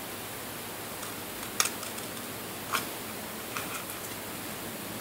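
Scissors snipping slits into a cardboard tube: three sharp snips about a second apart, the first the loudest, over a steady background hiss.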